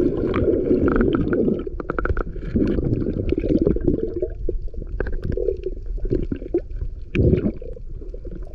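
Muffled sloshing and gurgling of water heard through a camera's sealed waterproof housing while snorkeling, coming in irregular surges with scattered sharp clicks and knocks.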